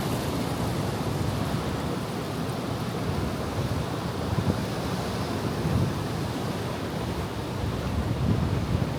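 Ocean surf, a steady rushing wash of waves with irregular swells, and wind buffeting the microphone.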